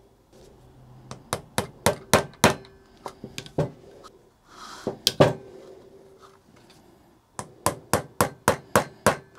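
Sharp hard taps in quick runs of several, about four or five a second, with a single louder knock about five seconds in.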